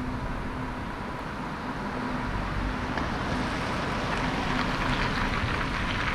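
City street traffic: cars driving past on the road, their tyre and engine noise growing louder in the second half.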